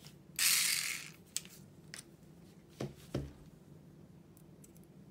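Small parts and tools being handled on a workbench: a brief rustle about half a second in, then a few small clicks and two light knocks around the three-second mark.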